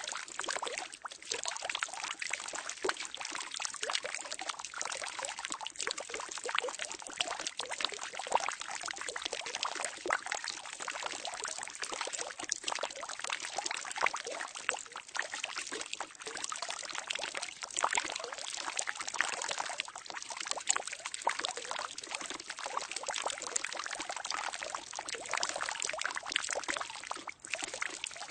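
Water pouring steadily into a barrel, a continuous splashing with fine bubbling and crackle.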